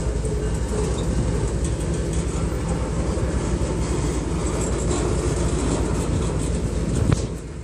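Freight cars of a Kansas City Southern de México train rolling past: a steady rumble and rattle of steel wheels on the rails. Near the end there is one sharp clank, and then the sound briefly drops.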